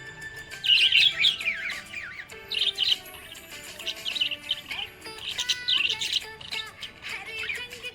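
Budgerigar chirping and warbling in quick clusters of rapid chirps, loudest about a second in, with background music underneath.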